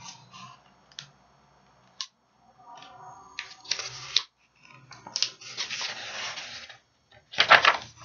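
Paper pages of a hardcover picture book being turned and handled, rustling in several bursts, with a few light taps early on from the book being gripped.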